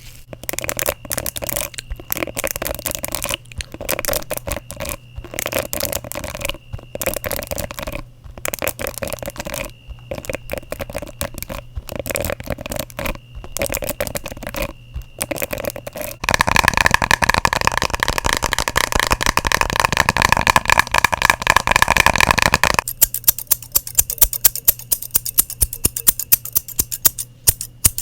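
ASMR triggers of fingers working on objects close to the microphone: quick scratchy tapping in short bursts with brief pauses, then about two-thirds of the way in a denser, continuous scratching for several seconds, and near the end a fast run of light tapping clicks.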